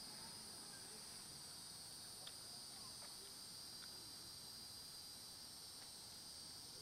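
Faint, steady high-pitched insect chorus, crickets or similar, with a couple of faint ticks.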